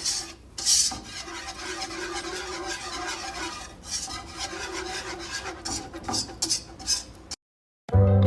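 Metal whisk scraping and stirring against the bottom of a pot, working flour into melted butter at the start of a roux. It cuts to silence near the end, and music then begins.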